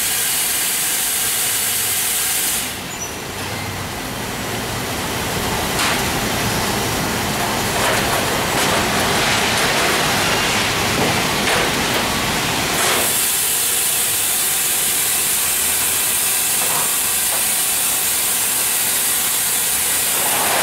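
Steady machinery noise of a factory conveyor line, with a continuous high hiss. The hiss drops away about three seconds in and returns about thirteen seconds in; in between, broader machine noise carries on with a few light clicks.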